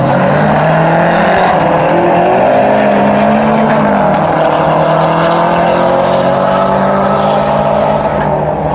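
Mazdaspeed3's turbocharged four-cylinder engine running under steady load as the car is driven, its drone climbing slowly in pitch as the revs build.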